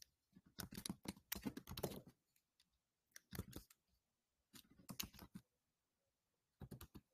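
Computer keyboard typing in four bursts of quick clicks, the first and longest about half a second in.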